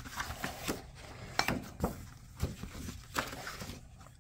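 Pages of a ring-bound workbook being turned by hand: paper rustling, with a handful of short, sharp clicks and taps spread through.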